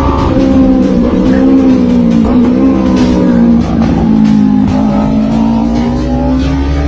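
A big motorcycle's engine running while riding at speed, its pitch sinking and rising gently, with background music underneath.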